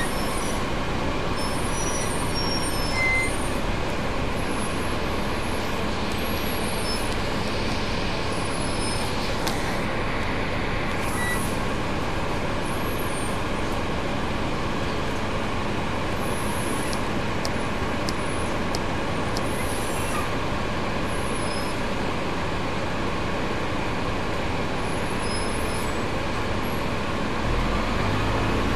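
Double-decker bus's engine and gearbox running on the move, heard from on board: a steady drone with road noise. Near the end a new, steadier low note comes in.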